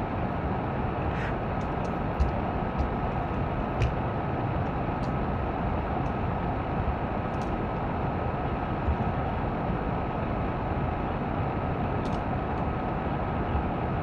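Steady background noise with a faint constant high tone running through it, broken by a few light, sharp taps spaced irregularly a second or more apart.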